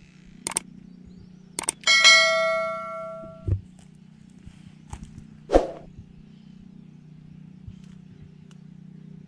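Subscribe-button animation sound effect: a couple of mouse-style clicks, then a bell ding about two seconds in that rings out over about a second and a half. A single short knock follows a few seconds later, over a low steady hum.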